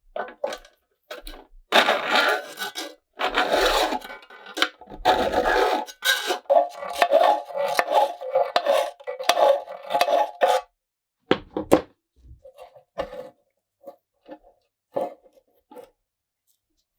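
Hand work on a rusty metal lantern. Repeated scraping and rubbing strokes run for about nine seconds, then a few short knocks and scrapes follow near the end.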